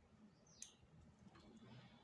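Near silence: room tone, with one faint, short, high falling chirp just over half a second in.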